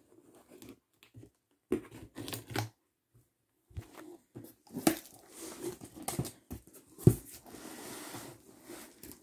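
Packing tape on a cardboard box being cut with scissors and the flaps pulled open: irregular snips, scrapes and tearing rustles. One heavy thump about seven seconds in.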